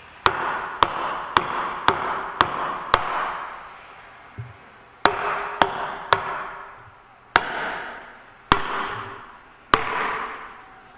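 A hammer striking a wooden block laid over a new wheel seal, driving the seal into a truck wheel hub. There are twelve sharp blows, six quick ones, then three, then three spaced further apart, each followed by a short ring.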